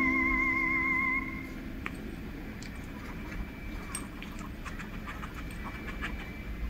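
A held music chord dies away about a second in; then faint snuffling, small clicks and scratching of a small dog nosing around on carpet.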